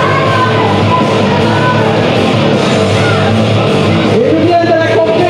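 Loud rock music with a singing voice, played steadily throughout.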